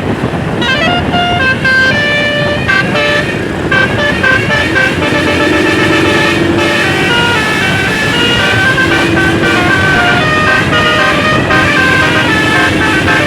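Basuri telolet musical air horn on a tour bus playing a fast tune of short stepped notes, with a lower held note sounding now and then, over continuous road and engine noise.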